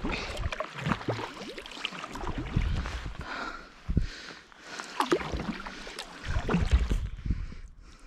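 Sea kayak paddle dipping and pulling through the water in irregular splashy strokes, with water gurgling and dripping off the blades and low rumbles of wind on the microphone.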